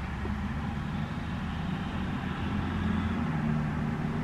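A car engine running with a steady low hum, its pitch shifting slightly about halfway through.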